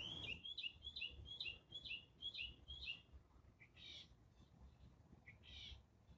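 Wild birds calling: a quick series of about eight repeated down-slurred whistled notes over the first three seconds, then two harsher calls, each led by a short note, about a second and a half apart. A faint low rumble lies underneath.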